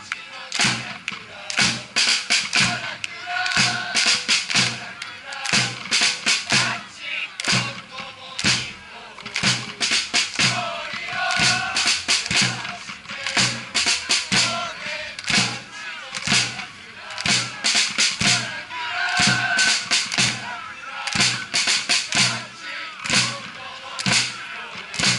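Football supporters chanting in unison to a steady, repeated drum beat.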